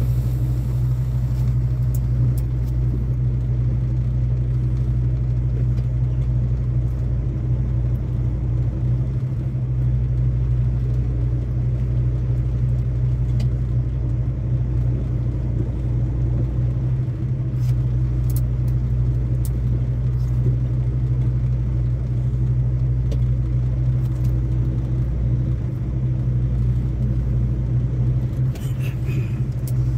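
Semi truck running down the road, heard from inside the cab: a steady low engine drone and road rumble, with a few faint ticks here and there.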